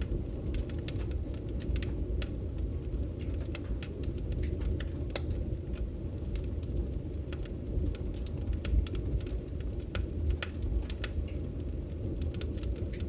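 Campfire crackling: frequent sharp pops and snaps of burning wood over a steady low rumble from the fire.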